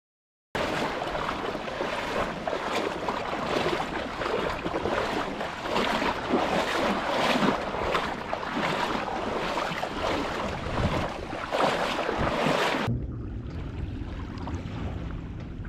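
Shallow seawater sloshing and splashing in uneven surges as someone wades through it, mixed with wind on the microphone. About 13 seconds in it cuts to a quieter, steady wind rumble with faint lapping water.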